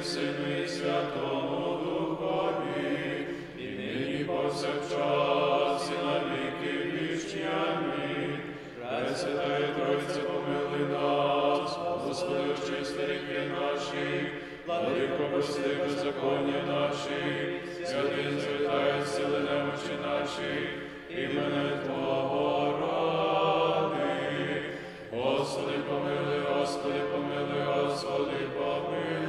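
Small group of men singing Byzantine-rite memorial chant for the panakhyda a cappella, in sustained phrases of a few seconds each, with short breaks between them.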